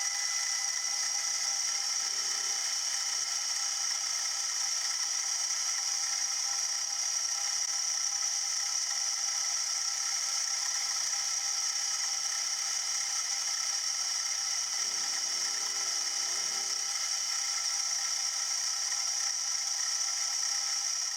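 Milling machine running steadily as it mills the end of a small brass bearing block to length, with a steady high-pitched whine.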